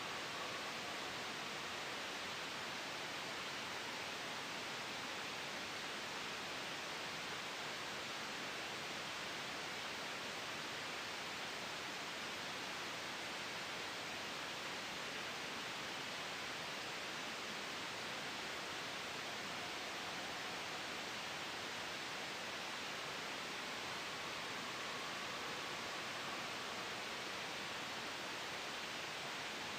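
Steady soft white noise blended with a gentle wind ambience: an even hiss with a faint, soft whistle that swells slightly at the start and again near the end.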